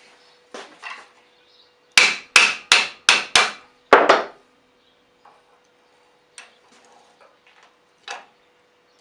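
A hammer striking metal in a quick run of about seven sharp blows, with a few lighter taps before and after.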